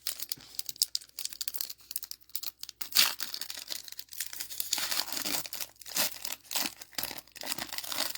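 Plastic wrapper of a Dragon Ball Z trading card booster pack being torn open and crinkled by hand, an irregular run of crackles with the loudest tear about three seconds in.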